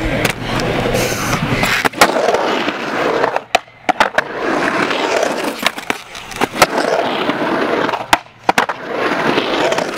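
Skateboard rolling and carving through a concrete bowl: the rolling noise of the wheels on concrete swells and fades with each pass along the walls. Sharp clacks of the board and trucks hitting break in, the loudest about two seconds in and again just past halfway.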